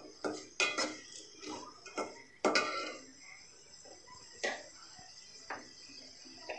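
A slotted steel spoon scraping and knocking against an aluminium pot while sautéing onions: a quick run of clicks and scrapes over the first three seconds, then two single knocks.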